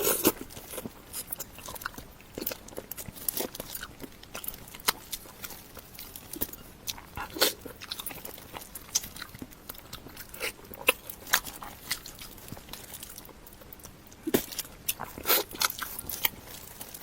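A person chewing and crunching on a steamed salmon head: irregular sharp clicks and crackles of biting and chewing, with louder bunches of crunches in the middle and near the end.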